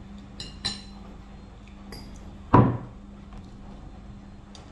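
Light clicks of cutlery and dishes, then one loud knock on the table about two and a half seconds in, over a steady low hum.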